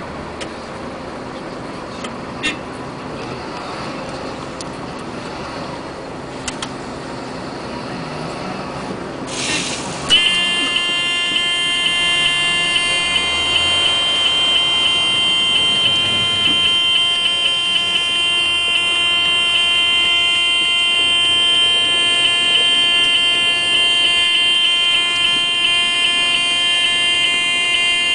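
A truck engine runs low, then about ten seconds in an electronic warning buzzer starts abruptly and holds one steady, unchanging tone with a fast flutter.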